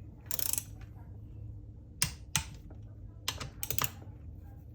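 A ratcheting torque wrench tightening small bolts: a short rasp near the start, then sharp clicks, two about two seconds in and a quick run of clicks around three and a half seconds, over a low steady hum.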